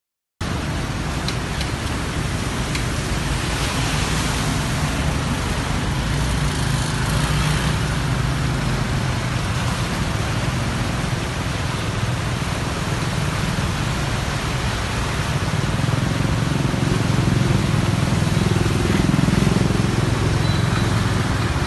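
Cars and motorbikes driving slowly through a flooded street: engines running under a steady wash of splashing water. It cuts in suddenly about half a second in.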